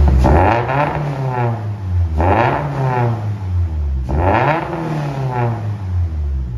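Turbocharged 2.4-litre flat-four of a 2022 Toyota GR86, revved three times while parked, about two seconds apart, each time climbing and then dropping back toward idle. It is being test-revved on a freshly loaded tune for a new 3-inch MAF housing and turbo inlet.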